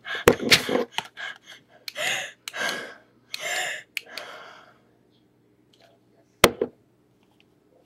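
A girl gasping and drawing in several hard breaths through an asthma inhaler, with a few handling clicks at first. One sharp knock about six seconds in.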